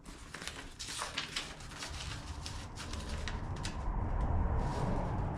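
A paper instruction sheet being handled: scattered crinkles and small clicks, with a low rumble of handling noise that builds near the end.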